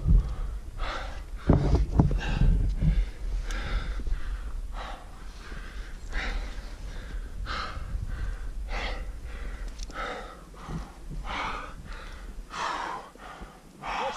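A climber's heavy, rapid breathing: a hard, gasping breath about every second and a quarter, from exertion while climbing rock at about 6000 m with a heavy pack. A few low thumps sound in the first three seconds.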